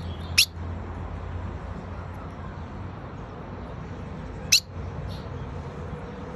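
Female ultramarine grosbeak (azulão) giving two single short, sharp, high call notes, the first just under half a second in and the second about four seconds later, over a steady low background hum.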